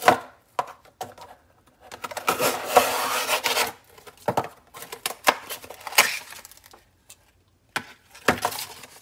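A sharpened kitchen knife slicing through a thin cardboard box: a scraping cut lasting about a second and a half, among sharp knocks and crackles of the cardboard being handled.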